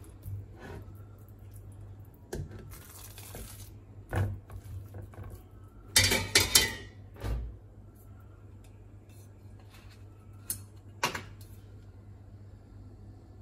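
Kitchenware clinking and knocking as raw ribeye steaks are handled and turned on an enamel plate. The loudest is a quick cluster of sharp clinks about six seconds in, with a brief hiss about two and a half seconds in and a steady low hum underneath.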